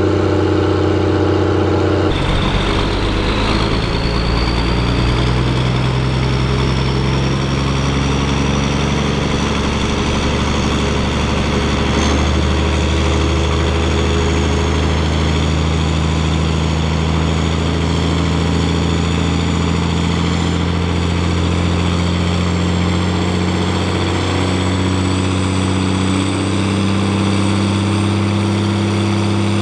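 Fendt Favorit 824 tractor's six-cylinder turbo diesel running hard and steady on a dynamometer. A high whine climbs for several seconds after a sudden change about two seconds in, and the deep engine note edges slowly upward later on.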